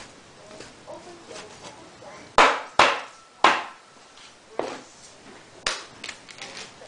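Large knife chopping venison on a wooden chopping block: five sharp chops, unevenly spaced, starting about two seconds in, then a few lighter taps near the end.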